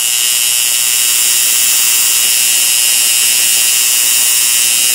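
Homemade high-voltage plasma spark plug arcing continuously with air blown through it: a loud, steady, high-pitched electrical buzz and hiss.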